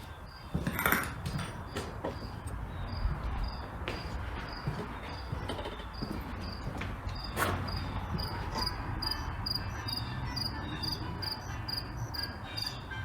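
Insect chirping in a steady, even rhythm of about two to three short high chirps a second, over a low hum, with two brief knocks about a second in and near the middle.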